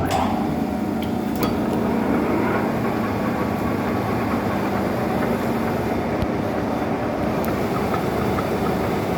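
1M63 heavy screw-cutting lathe running, a steady mechanical drone with a constant low hum.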